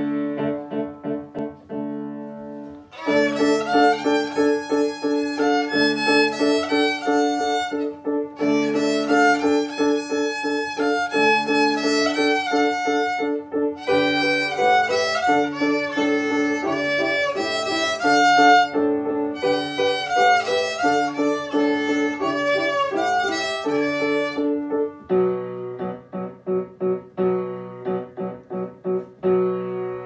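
A young student playing a traditional Hungarian folk tune on the violin over a steady piano accompaniment. The piano plays alone at first; the violin melody comes in about three seconds in and drops out again about five seconds before the end, leaving the piano.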